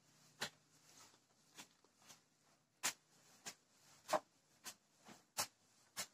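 Faint, sharp clicks at irregular intervals, roughly one or two a second, as a long-handled tool digs into and tosses a pile of chopped grass fodder being turned.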